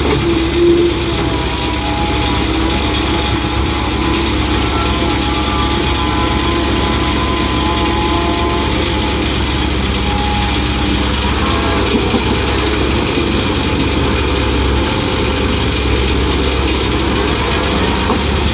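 Komatsu PC130-8 excavator's diesel engine running steadily, with faint whining tones from the working machine that slide up and down in pitch through the middle.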